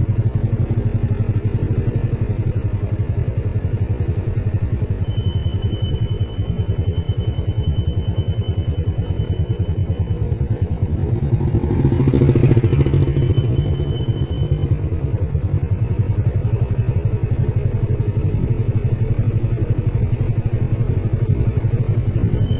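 Motorcycle engine running steadily, heard from the bike, with an even pulsing note. It swells louder for a second or two about halfway through.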